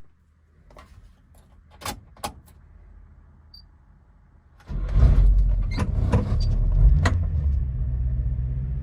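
The 660cc engine of a 1997 Subaru Sambar mini truck running: faint at first with two sharp clicks about two seconds in, then much louder and steady from a little past halfway.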